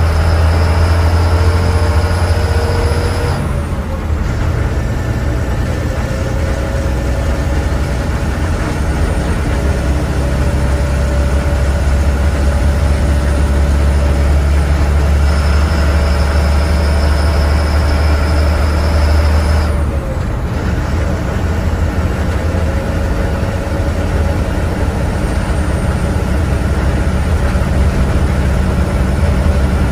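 Diesel engine of a KSRTC Sarige bus running on the road, heard from inside, a low hum with a whine that climbs in pitch as the bus gathers speed. The whine breaks off and the engine note drops twice, about three seconds in and about twenty seconds in, as it changes gear.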